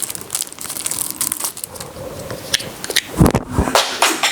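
Plastic packaging crinkling and rustling as small accessories are handled, with a dull thump about three seconds in.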